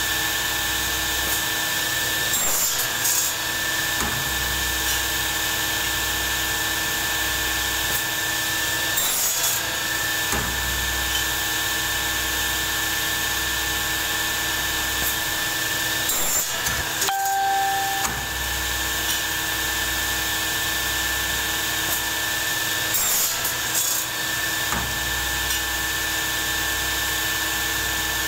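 A power tool running steadily at a workbench, giving a constant whine over a grinding, hissing noise. A few brief knocks and short changes in the running break it, the clearest about two-thirds of the way through.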